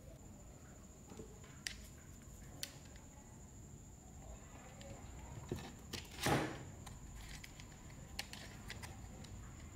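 Light clicks and taps of an electric motor's stator and the plastic motor housing of a Makita MUC400 electric chainsaw being handled during reassembly. A louder scraping knock about six seconds in, as the stator is set down into the housing.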